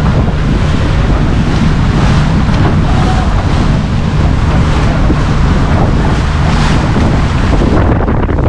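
A motor launch under way on a lake: its engine drones steadily beneath loud wind buffeting the microphone.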